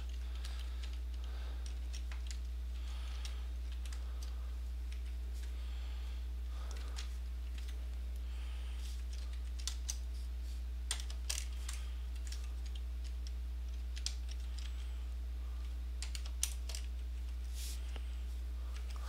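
Keystrokes on a computer keyboard in short irregular runs, over a steady low electrical hum.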